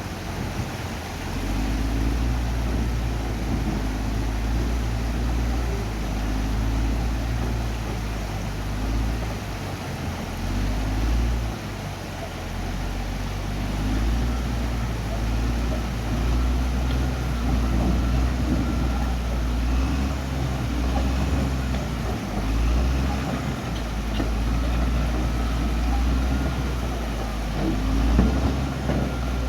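Caterpillar D6R XL bulldozer's diesel engine running, a steady low rumble that swells and eases in level.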